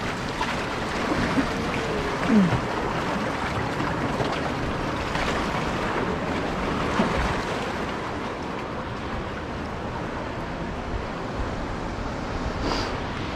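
Surf washing and splashing against the boulders of a rock jetty, a steady rush of sea noise.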